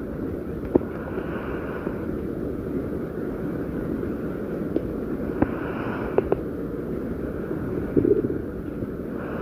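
Stomach growling and gurgling, boosted so that it sits in a steady low rumbling noise, with a few sharp pops and a louder gurgle about eight seconds in.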